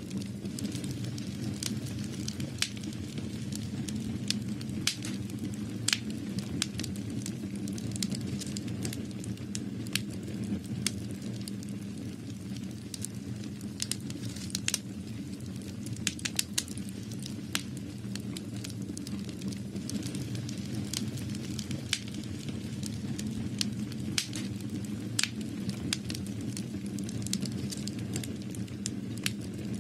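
Irregular sharp clicks and crackles, several a second and a few louder than the rest, over a steady low hum.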